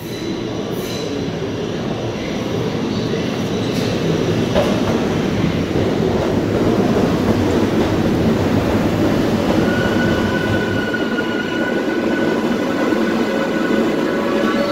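R142A subway train pulling into an underground station: a dense rumble of the cars rolling past the platform that grows louder over the first several seconds. About two-thirds through, steady high-pitched squealing tones join in.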